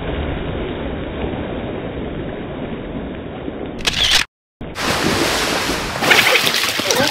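Swimming-pool water splashing and sloshing as people jump in, cut by a brief total silence about four seconds in, with louder, sharper splashing in the last second.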